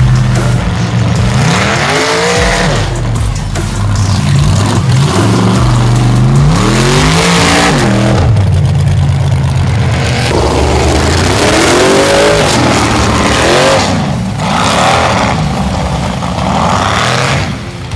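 Engine of a stripped-down, Jeep-style mud buggy revving hard again and again as it churns through a mud pit, its pitch climbing and dropping several times.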